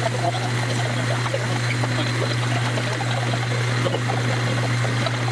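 Metal lathe taking a facing cut on a large aluminium disc: a steady low machine hum under a constant fine crackle of chips coming off the cut.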